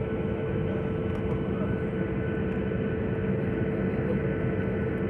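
Steady drone of an airliner's engines and cabin air heard from inside the passenger cabin, with a steady hum tone running through it; the engines are at low power on the ground before takeoff.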